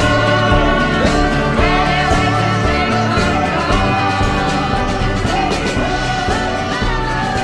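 Background song with singing over a steady beat.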